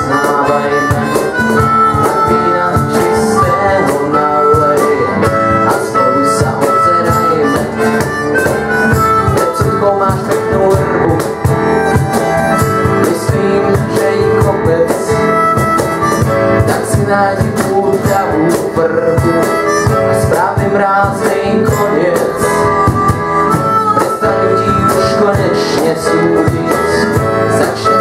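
Harmonica playing a lead line with bent notes over a steadily strummed acoustic guitar, a live acoustic duo sound.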